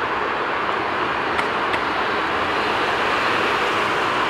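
Boeing 787 Dreamliner's Rolls-Royce Trent 1000 turbofans at take-off thrust as the airliner lifts off and climbs away: a steady, loud rush of jet noise.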